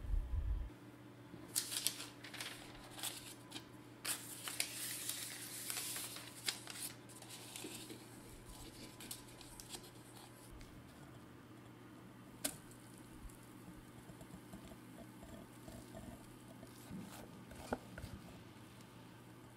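Baking parchment crinkling and rustling as it is handled and pressed into a round cake tin, dense for a few seconds, then fainter handling with a single sharp tap about halfway through.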